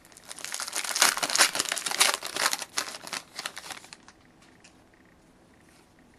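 A trading-card pack wrapper being torn open and crinkled: a dense crackling rustle for about four seconds, then faint light clicks of the cards being handled.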